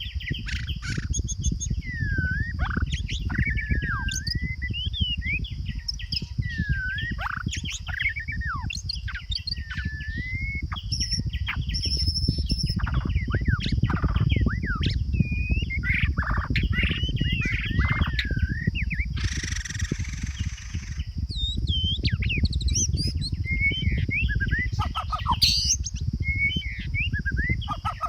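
A songbird singing a varied run of whistled notes, with quick rising and falling glides, over a steady high hum and a low rumble. A short hiss cuts in a little past the middle.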